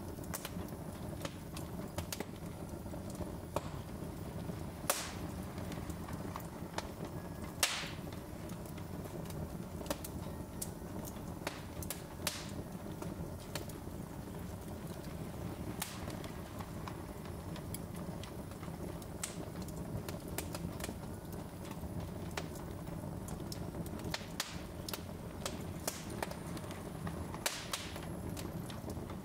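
Logs burning on a fireplace grate: a steady low rush of the flames under frequent small crackles and pops. A few louder snaps stand out, about five, eight, twelve and sixteen seconds in and again near the end.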